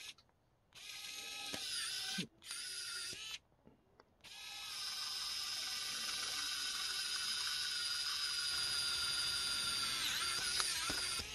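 XCOOL mini electric precision screwdriver running in drill mode with a tiny drill bit in 3D-printed plastic, a high, steady motor whine. A short run with a brief stop passes through an already-drilled hole, and after a pause a longer run of about seven seconds bores a fresh hole.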